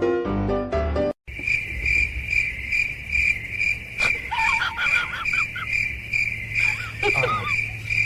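Piano music cuts off about a second in. Then steady cricket-like chirping follows, pulsing about three times a second, with two short wavering high-pitched calls over it.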